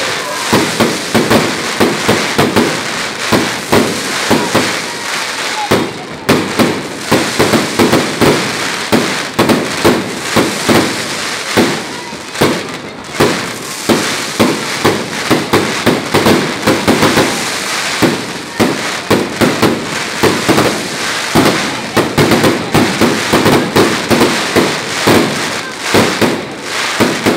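Fireworks display: a continuous barrage of sharp bangs, several a second, with a brief lull about six seconds in.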